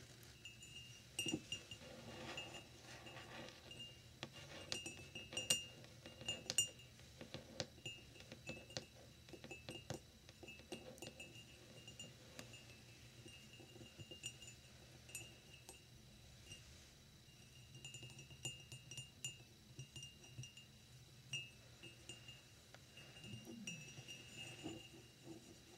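Long fingernails tapping and clicking on a thick, paneled glass tumbler, each tap making the glass give a short, high ring. The taps come irregularly and softly, with a few louder ones about five to seven seconds in.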